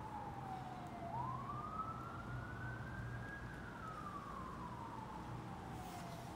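A siren wailing, its single tone sliding slowly down, then up, then down again about every five seconds, over a low steady hum.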